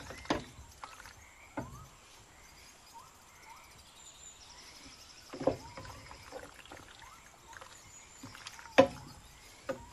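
Wooden spatula stirring sauced penne in a stainless steel pot, with a few scattered knocks of the spatula against the pot, the loudest near the end.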